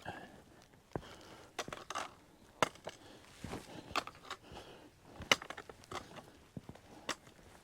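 Footsteps of one person walking, a string of uneven sharp steps one to two a second.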